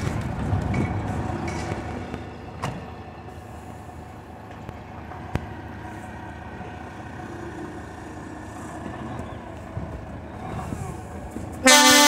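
DAF XF truck's diesel engine running at low revs as the truck creeps forward. Near the end a loud multi-note air horn blast starts, several tones sounding together as one chord.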